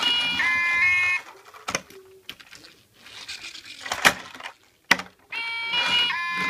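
Toy police vehicle's electronic two-tone siren alternating between a higher and a lower pitch, cutting off about a second in. Knocks and clicks from the plastic toys being handled follow, the sharpest about four seconds in. The siren starts again near the end.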